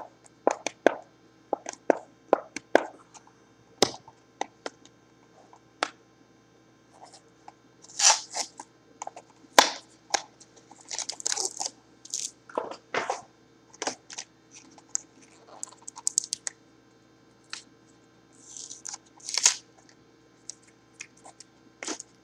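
Hands opening small cardboard trading-card mini boxes: a run of sharp taps and clicks, then several bouts of crinkling and tearing of the cardboard packaging.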